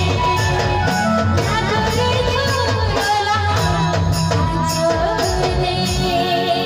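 Live Jhumar folk song: a woman singing into a microphone over keyboard and drum accompaniment, played loud through a stage sound system. The low accompaniment drops away near the end, leaving the voice and held keyboard notes.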